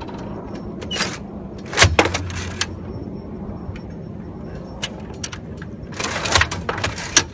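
Steady low drone of a military drone (UAV) overhead, with rustling handling noise and a thump about two seconds in and another burst of rustling near the end.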